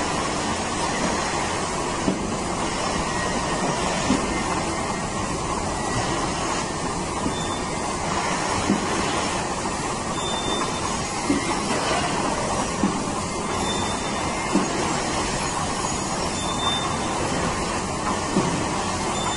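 Rotary milking parlour machinery running: a steady mechanical noise with short metallic knocks every second or two.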